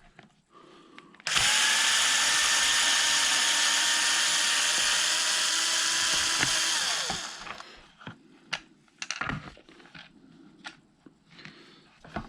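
Cordless power driver running steadily for about six seconds, backing out a 2.5 mm motor-mount bolt, then spinning down. Light clicks of small parts being handled follow.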